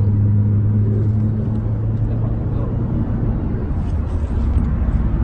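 Car engine and road noise heard inside the cabin: a steady low hum over rumble, the hum fading out about two to three seconds in.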